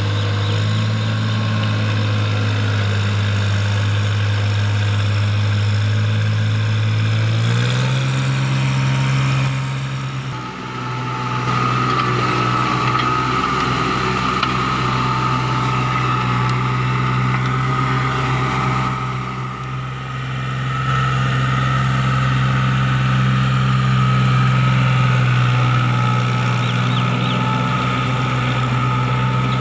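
Tractor's diesel engine running steadily while ploughing. Its pitch steps up about seven seconds in, and the level dips briefly twice, near ten and twenty seconds in.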